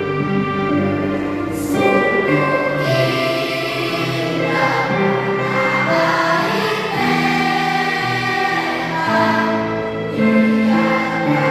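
A children's school choir singing a song in unison over a music accompaniment, the held notes changing pitch every second or so.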